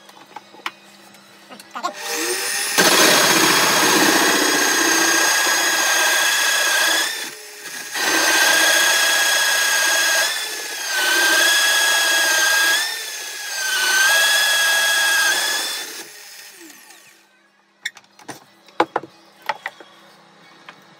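Pillar drill cutting into oak with a 2.5-inch hole saw. The motor spins up about two seconds in, then runs loud and whining through the cut, easing off three times, its pitch sagging as the saw bites. It winds down with a few seconds left, followed by light wooden knocks and clatter as the pieces are handled.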